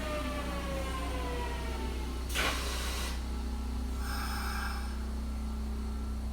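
Kintetsu 1252-series electric train braking to a stop: the traction motors whine, falling in pitch as it slows, then fade out about two seconds in. A short sharp hiss of air follows, likely the brakes releasing or venting at the stop. A steady low hum from the stationary train continues.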